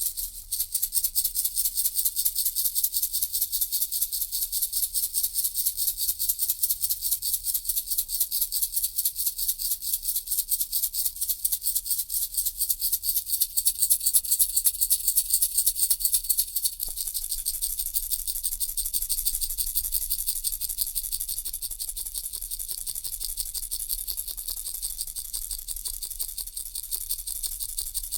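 Baby rattle shaken steadily, a continuous, even rhythm of rapid bright rattling shakes.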